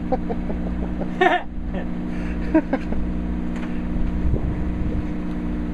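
Fishing boat's engine running with a steady low drone, with brief voices over it about a second in and again around two and a half seconds.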